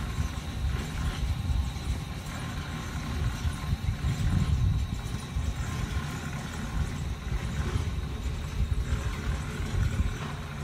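Uneven low rumbling noise, with a faint steady high-pitched whine above it.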